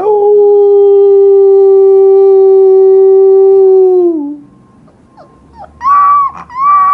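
Husky puppy howling: one long, steady howl of about four seconds that drops in pitch as it trails off, then two shorter, higher howls near the end.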